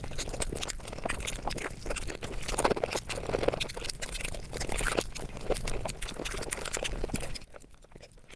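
Eating sounds sped up about five times: a rapid, dense run of chewing, lip-smacking and wet clicking, dropping quieter near the end.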